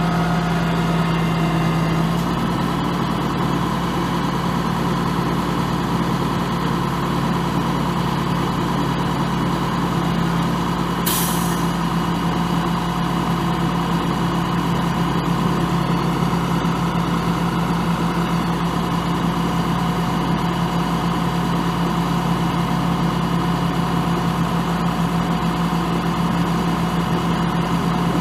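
Caterpillar 3116 six-cylinder diesel engine of a 1995 Chevrolet Kodiak truck idling steadily, with a brief hiss about eleven seconds in.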